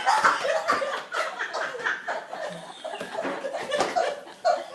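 People giggling and laughing under their breath, in short choppy bursts.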